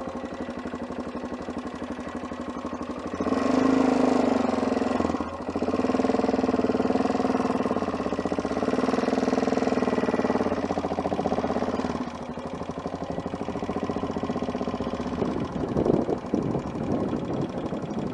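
Adventure motorcycle engine running at low revs, picking up about three seconds in and holding a steady, louder note until about twelve seconds, then dropping back to low, uneven revs while the bike turns around at walking pace.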